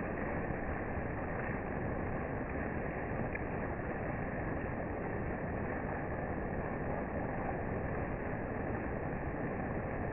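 Motorboat running steadily on the water, an even rushing noise with no distinct events.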